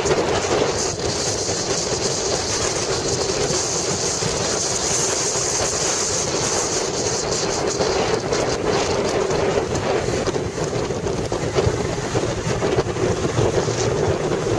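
Motorcycle running at a steady cruising speed with road noise, and wind rushing over the microphone.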